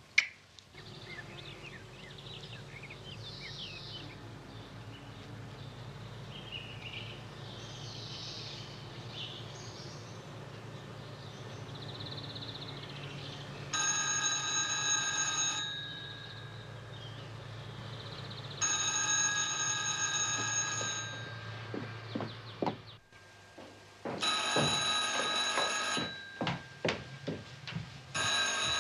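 A corded telephone's bell ringing: four rings of about two seconds each with short pauses between, starting about halfway in. There are light knocks between the later rings.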